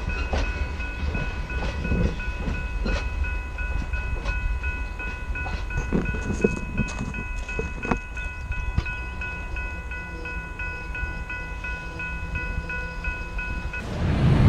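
Railroad grade-crossing warning bell ringing steadily, about two strokes a second, over the fading rumble and clatter of the train's last cars rolling away. The bell cuts off about a second before the end, as the crossing clears after the train.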